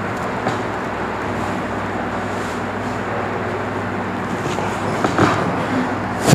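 Steady background rumble with a low hum, like road traffic or a running machine, with a few soft knocks about five seconds in and one sharp click at the very end.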